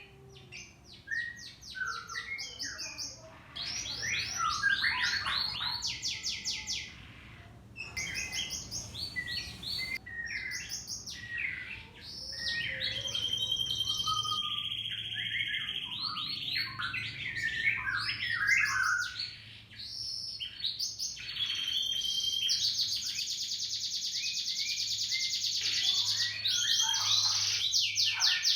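Domestic canary singing vigorously: a long, near-continuous song of rapid trills and rolls, with a held whistled note about halfway through and a long rolling trill near the end. This is the full 'gacor' song used as a lure recording to set other canaries singing.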